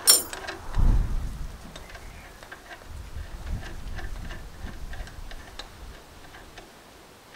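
Metal handling on a stone and tile saw's blade mount: a sharp clink at the start, then low thumps and a run of light ticks as the blade nut and outer flange are unscrewed by hand.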